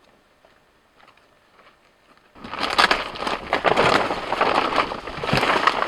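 Loud close rustling and crackling that starts suddenly about two seconds in, after near quiet.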